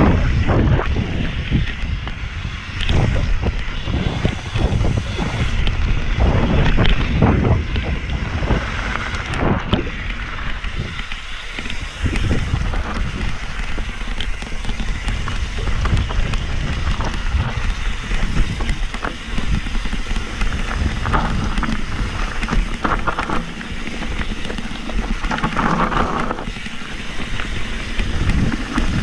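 Wind buffeting the microphone as a mountain bike runs fast downhill, with its tyres rumbling over grass and dirt and frequent short knocks and rattles as the bike hits bumps.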